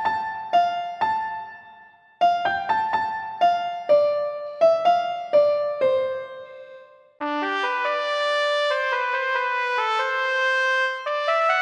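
Nokia 3310 ringtones playing back to back. The first melody is short piano-like notes that die away and ends about seven seconds in. After a brief gap the next ringtone starts, a melody of held notes.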